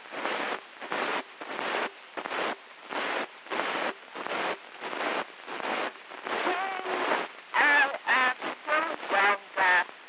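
An 1890 phonograph cylinder recording: heavy surface hiss swelling and fading in even pulses about twice a second, with an elderly woman's voice speaking faintly through it, clearer in the second half.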